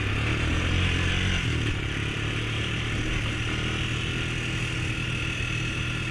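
Honda ATV engine running at a steady pace while riding a desert trail, over a steady rushing noise.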